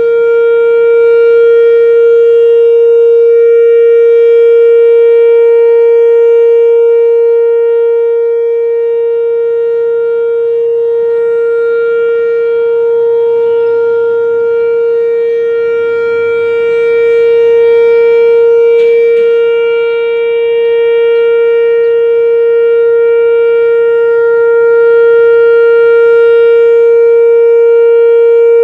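Whelen WPS-3016 electronic outdoor warning siren sounding its steady alert: one loud, unchanging tone that slowly swells and fades as the oscillating head turns toward and away.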